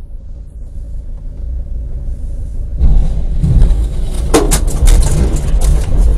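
Low rumble of cars on a dashcam recording, swelling sharply about three seconds in, with a quick run of sharp cracks and clatters in the middle as a car slides off the dirt verge, throwing up dust and grit.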